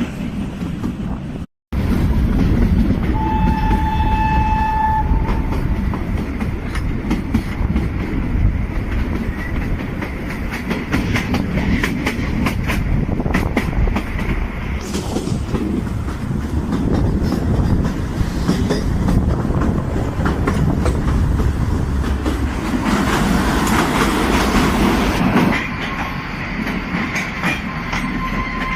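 Kalka–Shimla narrow-gauge toy train running, its wheels clattering over the rail joints over a steady rumble. The train's horn sounds once, held for about two seconds, a few seconds in.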